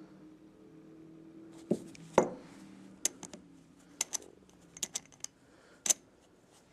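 Chrome quarter-inch drive ratchet and socket clicking and clinking as they are handled, about ten sharp metal clicks spaced unevenly.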